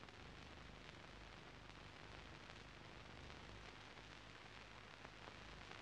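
Near silence: a faint steady hiss with a few light clicks, the noise floor of an old film soundtrack.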